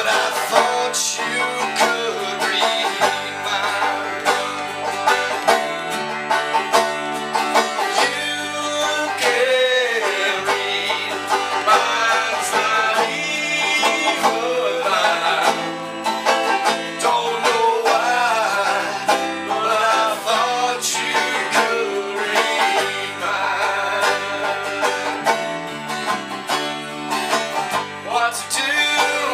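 Country or bluegrass music with plucked strings, the banjo to the fore, playing steadily.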